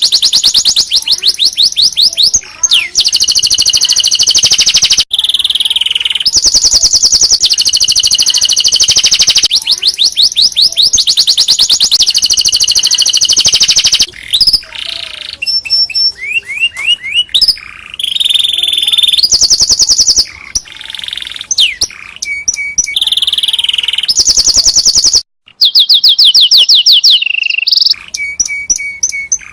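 Domestic canary singing a long, loud song of rapid trills and rolls, switching from one run of fast repeated notes to the next every second or two. It breaks off for a moment about 25 seconds in, then carries on.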